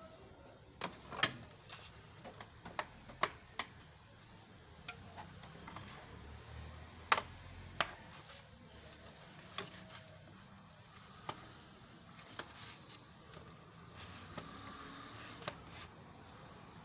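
Scattered sharp clicks and knocks of hand tools and plastic parts being handled while the radiator fan assembly is taken out of the engine bay. There are about a dozen irregular clicks, the loudest about a second in and about seven seconds in.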